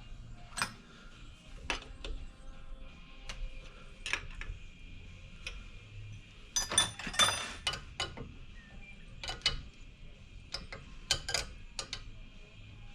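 Metal hand tools and small metal parts clicking and clinking as they are handled, with a denser run of ringing clinks about seven seconds in.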